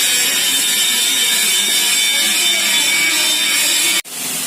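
Arc welding: the welding arc hissing steadily, cutting off abruptly about four seconds in.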